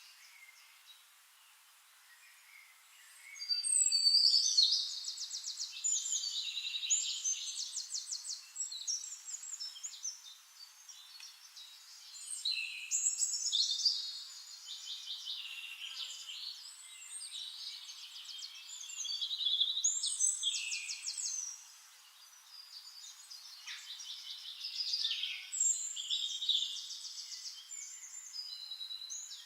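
A songbird singing: high, complex phrases of rapid trills and gliding notes, repeated in bouts every several seconds.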